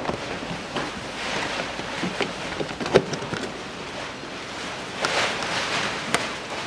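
Plastic wheel-arch liner flap being pushed and pressed into place by hand: plastic scraping and rustling, with a few sharp clicks and knocks, the loudest about three seconds in.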